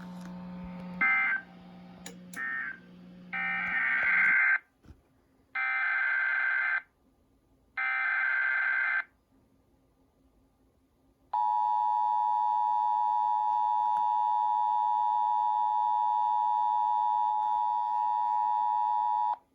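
Emergency Alert System tones on a weather radio broadcast. First come short, raspy digital data bursts: several quick ones, then three of about a second each with a second's gap between them. These are the SAME code bursts that carry the alert's data. Then, a couple of seconds later, the steady two-tone EAS attention signal sounds for about eight seconds and cuts off abruptly.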